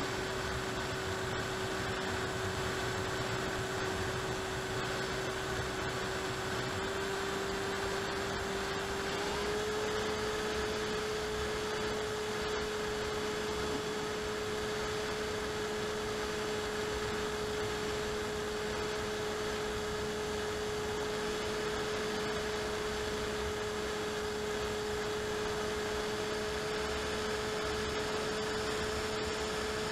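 Onboard sound of an AXN Floater-Jet RC plane's electric motor and propeller in flight: a steady whine over a hiss of rushing air. The whine rises slightly in pitch about seven seconds in and again about nine seconds in.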